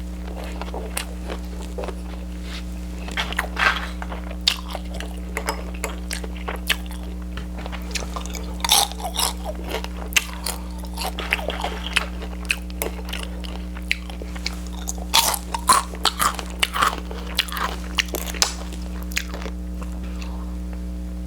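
Close-up crunchy chewing and biting of food, a run of crisp crunches from about three seconds in until near the end, over a steady low hum.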